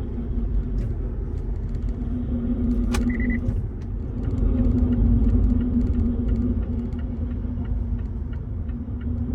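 Metal-on-metal grinding from a 2018 Mazda CX-5's brakes as the pedal is pressed, a steady drone that swells and fades over road rumble; really loud. It is the sign of brake pads worn so thin that their metal backing presses against the rotors. A click and a short beep come about three seconds in.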